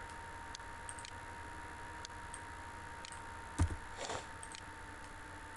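Sparse faint computer-mouse clicks over a steady low hum and hiss, with one dull thump about two-thirds of the way in, followed by a brief rustle.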